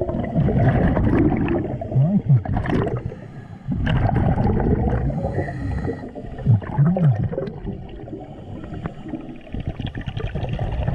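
Scuba diver breathing through a regulator underwater: gurgling surges of exhaled bubbles, a few seconds apart, with short low tones that rise and fall.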